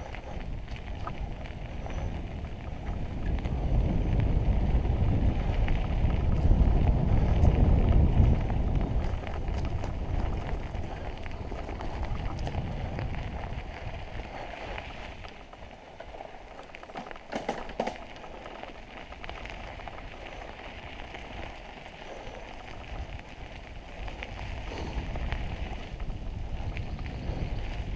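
Mountain bike rolling along a dirt trail: a steady crackling rustle of tyres on dirt and forest litter, with a low rumble that swells a few seconds in and eases after. A short clatter of clicks comes about two-thirds of the way through.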